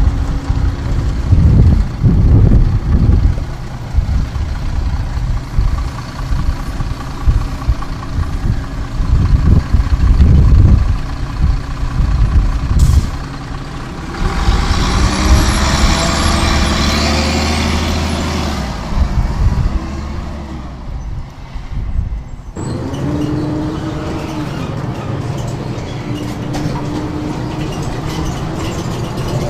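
Ikarus 435 articulated city bus with a ZF gearbox on the move: its diesel engine and heavy, uneven rumble with knocks in the first half. A loud hissing rush lasts a few seconds past the middle. From about two-thirds in the engine drones steadily.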